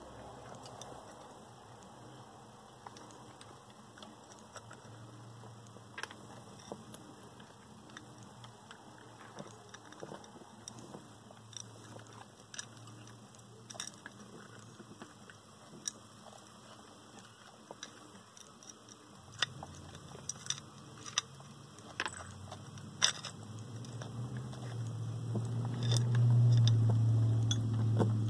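Land hermit crabs' shells clicking and tapping now and then against each other and against a seashell food dish as the crabs clamber over it. The clicks grow more frequent about two-thirds of the way in, and a low hum swells near the end.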